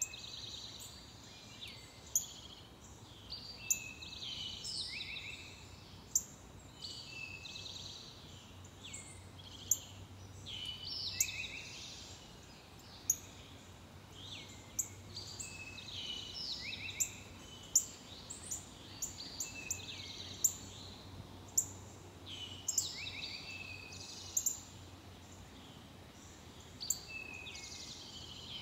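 Songbirds singing, with repeated falling whistled phrases and chirps, over a faint steady hiss. Sharp clicks come about every second or two and are the loudest sounds.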